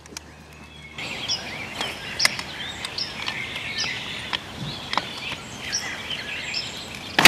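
Birds chirping steadily with scattered sharp clicks of pipe wrenches on a water-line fitting; at the very end a single loud sharp crack as the fitting gives under the wrenches, which the worker can't tell is the joint letting go or something breaking.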